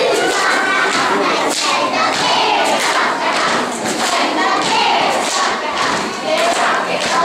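Young girls chanting a cheer together in loud shouted unison, with a few thumps among the voices.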